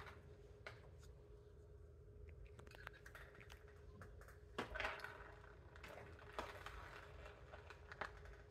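Faint scratching and light clicks of a PVC cement dauber being dipped in its can and brushed around a 3-inch PVC pipe joint, with a faint steady hum underneath.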